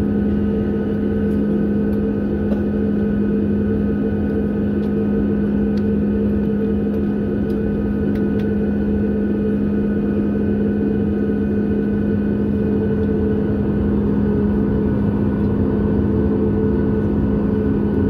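Cabin noise inside a Boeing 737 MAX 8 taxiing, its CFM LEAP-1B engines running at low power. It is a steady hum with a strong low tone and a fainter higher one, unchanging throughout.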